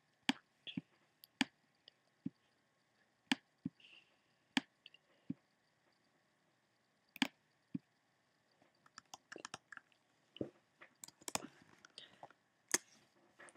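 Computer mouse clicking: single sharp clicks at uneven intervals, coming more closely together in the last few seconds.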